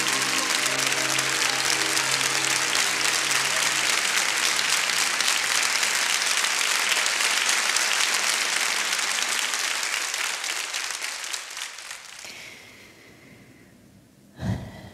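Audience applauding at the end of a song, while the last held chord of the music dies away in the first few seconds. The clapping stays strong, then fades away over the last few seconds, with a brief thump near the end.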